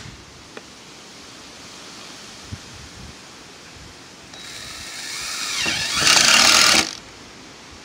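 Cordless drill driving a screw through a sheet-metal vent flange into a metal roof. The motor whirs up about four and a half seconds in, runs loud for about a second as the screw goes in, then stops.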